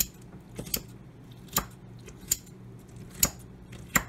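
Kitchen scissors snipping through squeezed-out kimchi cabbage in a bowl: about six short, sharp snips, irregularly spaced.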